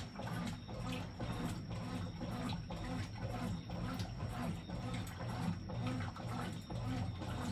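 Brastemp BWJ11 top-load washing machine running with a full drum of water: a low motor hum and churning water in a steady repeating rhythm.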